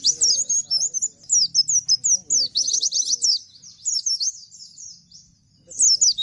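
Bustomi-type white-eye (pleci) singing in fast, rapid-fire runs of high, falling chirps, the loud, continuous 'nembak' style bird keepers prize. It pauses briefly about four and a half seconds in, then starts again near the end.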